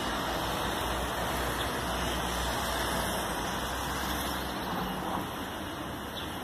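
Steady street background of road traffic: an even rush with a low rumble underneath that eases off about four and a half seconds in.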